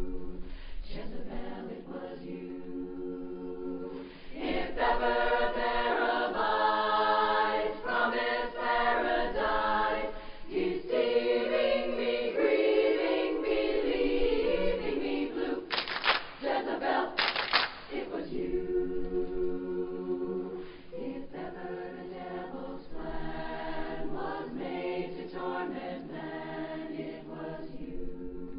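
Women's chorus singing a cappella in close barbershop-style harmony. The sound swells louder about four seconds in and eases back in the last third, with two short hisses about a second and a half apart just past the middle.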